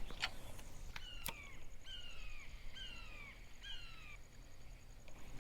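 A bird calling: four downward-sliding whistled notes, each about half a second long and roughly a second apart, with a few sharp clicks near the start.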